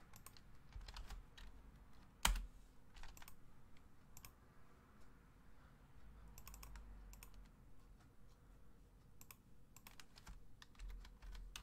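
Faint, scattered clicks of a computer keyboard and mouse being used, irregular and in small clusters, with one louder click about two seconds in.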